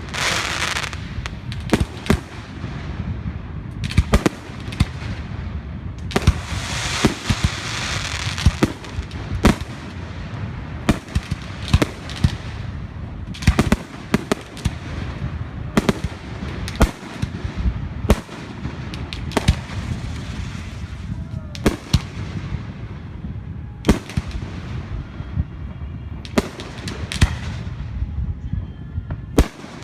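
Fireworks going off: many sharp bangs at irregular intervals, with hissing, crackling showers between them over a constant low rumble.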